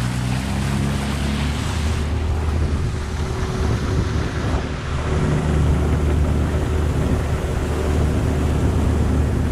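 Outboard motor on a small jon boat speeding up, its pitch rising over the first second or two, then running steady at speed. Wind rushes over the microphone and water hisses past the hull.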